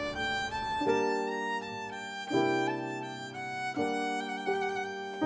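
Background music: a violin playing long held notes over sustained chords that change every second or so.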